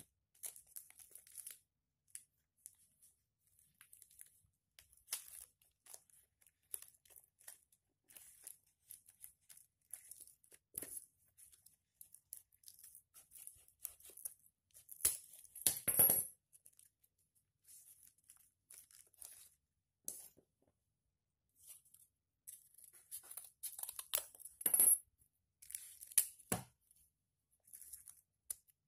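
Clear sticky tape being pulled, torn and pressed down, with paper and cardboard parts rustling in the hands. Short crackling sounds come on and off, with louder bursts about 15 seconds and 24 seconds in.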